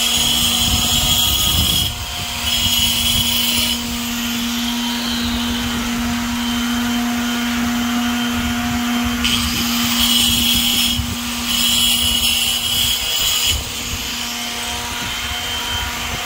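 Electric grinder running steadily on a concrete wall, smoothing it for paint. Harsh grinding noise comes and goes in stretches of a second or two as the disc presses on the surface.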